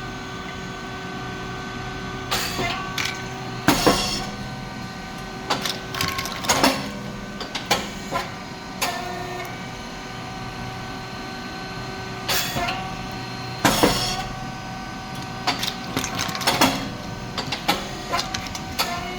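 SYP4509 rice cake popping machine running its production cycle: a steady motor-and-pump hum under repeated metallic clanks of the moving moulds. Twice, about ten seconds apart, comes a loud burst as the heated moulds open and a batch of thin rice cakes pops out.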